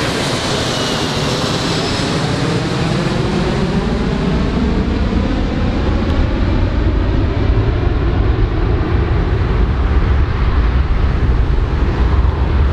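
Four-engine jet airliner flying away overhead: the engines' whine glides down in pitch as it recedes, while a deep rumble builds and takes over.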